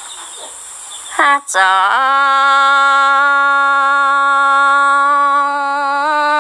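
A single voice singing: after a brief rising start about a second in, it holds one long steady note for about four seconds.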